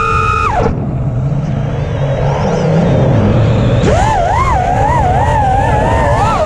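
Onboard audio of a 5-inch FPV quadcopter's brushless motors (1700kv Emax Eco II on 6S) whining, the pitch wavering with the throttle. A high held whine cuts out under a second in as the throttle drops for a dive, leaving a low rumble. About four seconds in the whine surges back up and keeps wavering.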